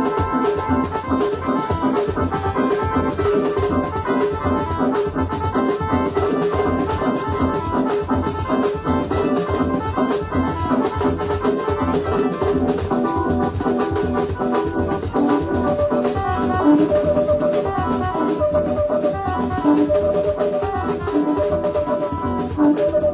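Loud music with a steady beat, keyboard or organ-like chords over drums.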